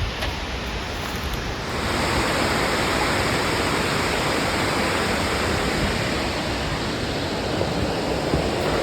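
Steady rush of falling water, which becomes louder and fuller about two seconds in.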